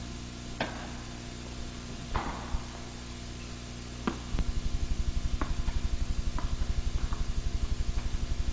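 Tennis balls hit by rackets and bouncing on the court in a large indoor tennis hall, a series of sharp knocks with some ringing after them, over a steady low hum. About four seconds in, a fast low pulsing starts and stays louder than the knocks.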